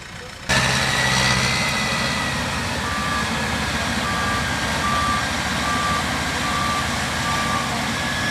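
Yanmar AW70V combine harvester running, its noise jumping up suddenly about half a second in, with a steady whine from the machinery. From about three seconds in its reversing alarm beeps six times, a little under once a second: the machine is backing up.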